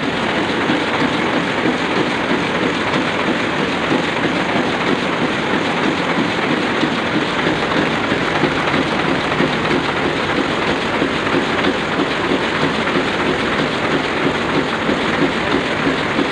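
Sakurai Oliver 66 sheet-fed offset printing press running steadily, a dense, even machine noise at a constant level.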